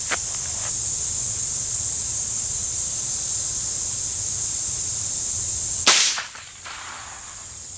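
A single shot from a Heritage Rough Rider .22 LR single-action revolver with a 6.5-inch barrel, about six seconds in, after a light click at the start. Steady high insect chirring runs underneath.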